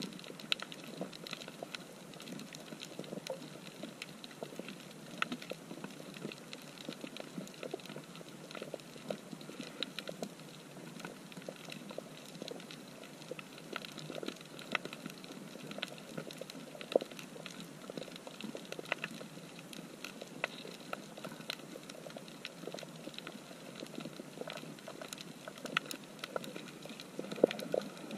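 Underwater coral reef soundscape: a continuous crackle of dense small clicks, with a few sharper, louder clicks standing out now and then.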